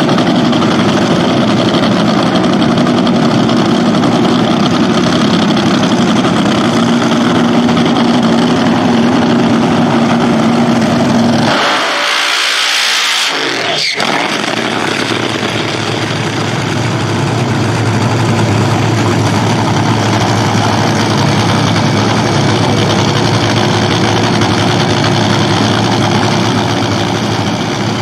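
Top Fuel dragster's supercharged nitromethane V8 running loud and steady, with a short full-throttle burnout burst near the middle, then settling back to a steady lower idle.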